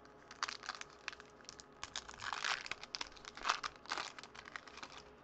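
Foil wrapper of a Topps baseball card pack crinkling and tearing as it is pulled open by hand: a run of irregular short crackles, loudest a little past the middle.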